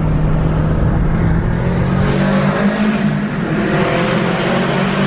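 Subaru WRX engine and exhaust running loud under acceleration, with the pitch climbing a little and the noise growing from about two seconds in.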